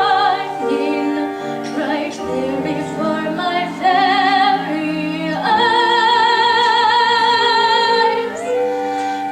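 A woman singing a show tune with vibrato over instrumental accompaniment, moving through several notes and then holding one long note from about halfway through.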